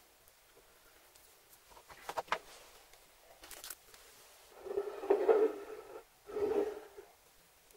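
Hands brushing and scraping dry spice rub across a wooden cutting board. Faint scratches come first, then two louder scratchy rustles in the second half.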